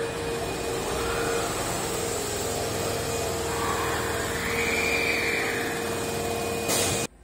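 Osaka Metro 21 series subway train pulling in and braking to a stop at the platform: a steady rumble and hum, with whining tones that rise and fall. A short hiss comes just before the sound cuts off suddenly near the end.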